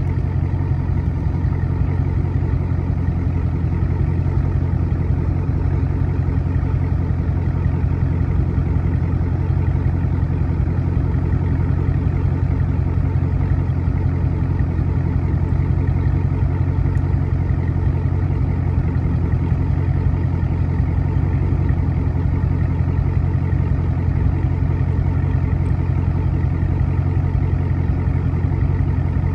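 Dodge SRT's Hemi V8 idling steadily, a low, even exhaust rumble with no revving.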